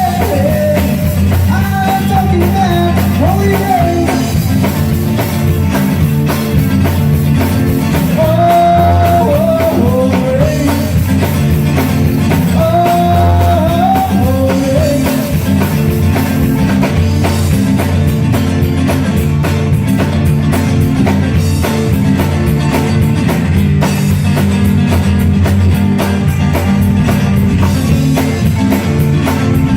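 A rock-style song playing with a steady drum beat and band backing. A sung melody line is heard through roughly the first half.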